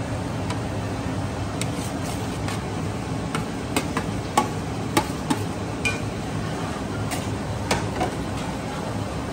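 Metal spatula and plastic plate clinking and scraping against a wok as potatoes and chicken are tipped in and stirred: a dozen or so sharp, irregular clicks through the middle, over a steady low rumble.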